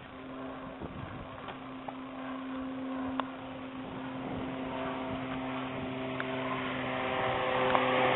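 Airplane engine noise growing steadily louder as the plane approaches, over a steady low hum, with a few faint clicks.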